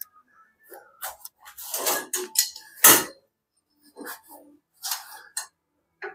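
Steel-tube frame of a homemade chainsaw stand clanking and scraping as its mast and brace are handled, a string of irregular metal knocks with the loudest about three seconds in.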